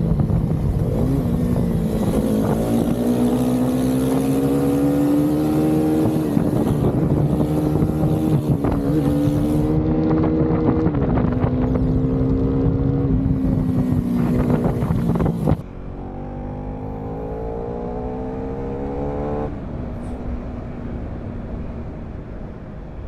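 KTM Duke 390's single-cylinder engine under hard acceleration, its note climbing and then dropping back at each upshift, several times over, with wind rushing over the microphone. About two-thirds of the way through the sound turns suddenly quieter and the wind stops, and a softer engine note climbs again and drops once more.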